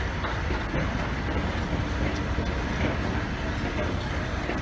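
Steady rumbling noise of a moving vehicle, with a few faint knocks.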